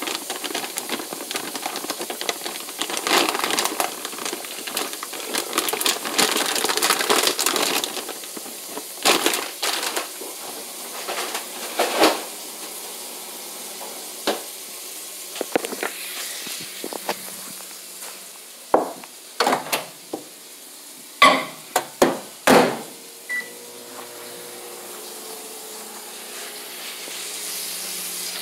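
Food frying in a pan while being stirred and scraped with a utensil for the first several seconds. After that, scattered sharp knocks and clinks of utensils and dishes sound over a quieter background.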